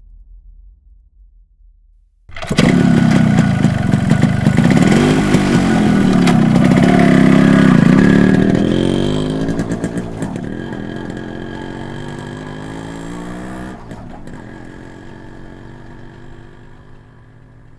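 Geared scooter engine catching suddenly after a short quiet stretch and revving up and down. It then pulls away and fades off gradually, with a couple of sharp clicks as it moves off.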